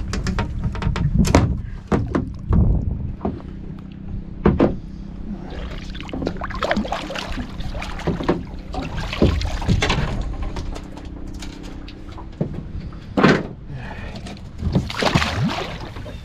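Irregular knocks, clicks and clatter of fishing gear being handled aboard a small boat, over a low steady hum that fades out about three quarters of the way through.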